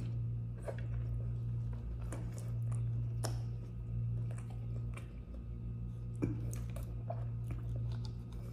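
A person chewing a mouthful of crunchy scorched rice crust (dokot), with scattered crisp crunches and small mouth clicks. A steady low hum runs underneath.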